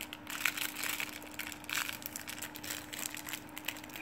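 A crinkly glittery plastic toy-ball wrapper being peeled off and crumpled by hand, in irregular crackling rustles.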